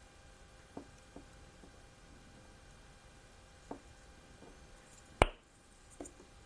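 Quiet hand work with a soldering iron on a circuit board: a few faint ticks and taps, and one sharp click a little after five seconds in.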